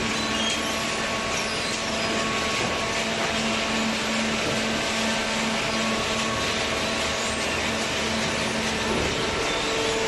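Hydraulic waste-paper baler and its feed conveyor running: steady machine noise with a low hum, which shifts to a higher hum near the end.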